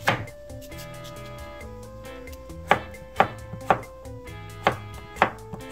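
Kitchen knife cutting cucumber into diagonal slices on a wooden cutting board. One chop comes at the start, then after a pause a run of about five sharp chops roughly half a second apart.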